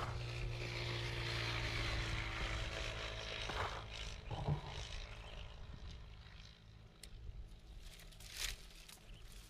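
A vehicle engine running with a steady hum, which fades away after about four seconds. Scattered light rustling and small clicks follow.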